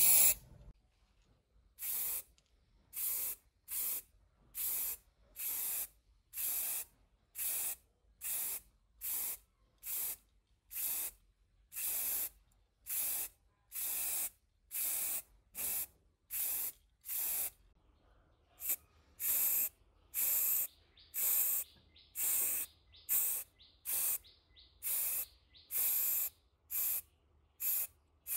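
Paint being sprayed in short, evenly spaced hissing bursts, a little more than one a second, each under half a second long.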